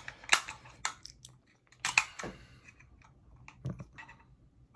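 Handling noise from a small metal Thunderbolt dock case being gripped and turned in the hands: scattered sharp clicks and light rubs of fingers and metal, the loudest about two seconds in.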